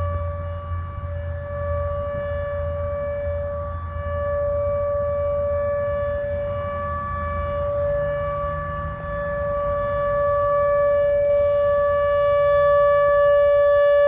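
ATI HPSS-16R tornado siren sounding a steady, high-pitched tone that stays on one pitch, super loud at close range, growing somewhat louder in the second half.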